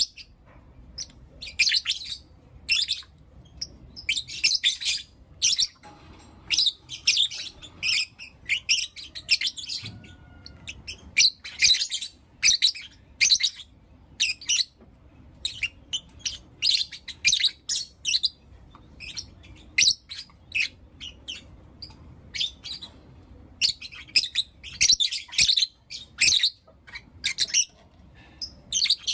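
Lovebirds chirping and calling: rapid, high-pitched chirps in short bursts, one after another with brief pauses.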